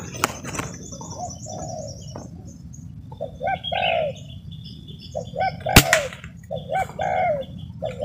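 Spotted dove cooing: repeated phrases of a short note followed by a longer falling coo, about every second and a half. A single sharp crack about six seconds in is the loudest sound.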